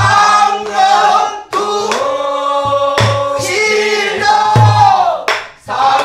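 A woman singing pansori in a full, strained voice with sliding pitch. She accompanies herself on a buk barrel drum, sharp stick strokes falling about every second and a half with low thumps between.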